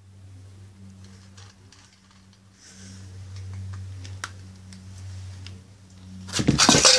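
Faint clicks of a cat eating from its bowl over a steady low hum; about six seconds in, a food bowl clatters loudly and rings briefly as the startled cat bolts.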